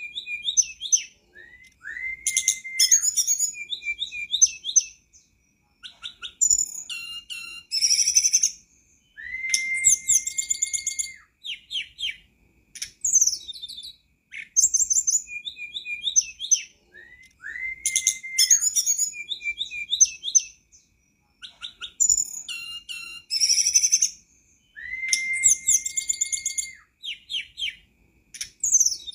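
Songbird singing: bright chattering and trilled phrases with a long level whistle, the same song coming round about every eight seconds with short pauses between.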